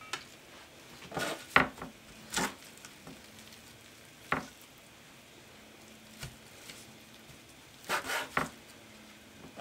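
Meat cleaver chopping cooked rotisserie chicken on a wooden cutting board lined with paper towel: a few scattered knocks, then a quick run of chops about eight seconds in.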